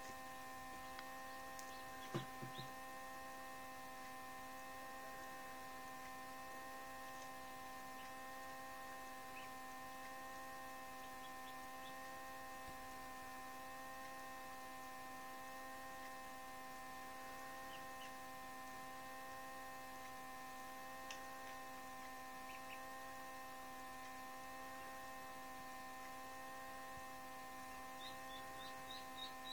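Steady electrical hum of an egg incubator, several held tones at once, with a few faint high cheeps near the end.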